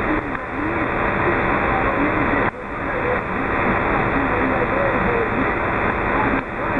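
Radio transceiver on the 27 MHz band putting out loud, steady static hiss, with a faint wavering voice buried in the noise: a distant station too weak to make out. The noise dips briefly about two and a half seconds in and again near the end.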